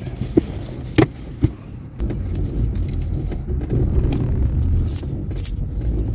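Small coins clinking in a hand, a few sharp clicks in the first second and a half, then a steady low car rumble heard inside the cabin from about two seconds in, with more faint jingling.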